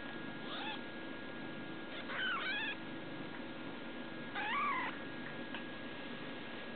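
Newborn kitten mewing: three short, high-pitched cries that rise and fall, a faint one at the start, then two louder ones about two seconds apart.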